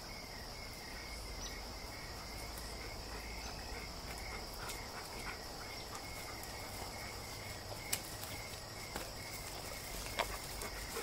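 Insects trilling in the background: one steady high trill with a lower chirp pulsing regularly under it. A few sharp clicks come in the last few seconds.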